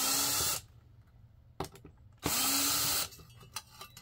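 Cordless drill backing screws out of a step cover panel: two short runs, each about three-quarters of a second long, the first right at the start and the second about two seconds later, each spinning up at its start, with small clicks of handling in between.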